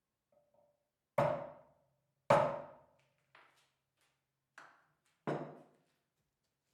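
Five irregularly spaced hammer blows on metal, each ringing briefly; the second is the loudest.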